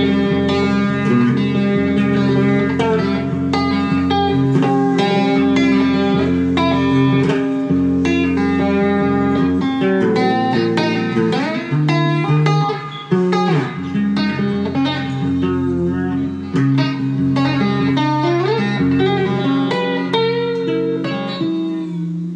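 Solo electric guitar played through an amplifier with reverb, letting notes and chords ring out, with sliding pitch bends around the middle. It dies away near the end.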